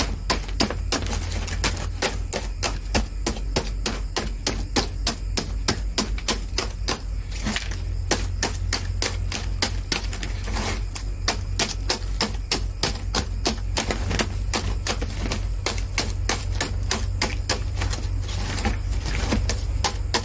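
Scissor points stabbing again and again into a bagged block of ice, a steady run of sharp taps about four times a second as the ice cracks apart.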